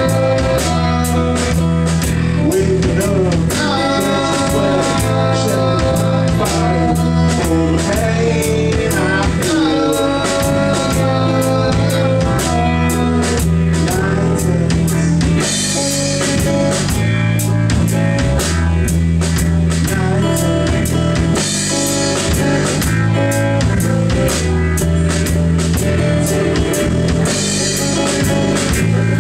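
Live amplified rock band playing: drum kit, electric and acoustic guitars and bass, with cymbal crashes swelling about every six seconds.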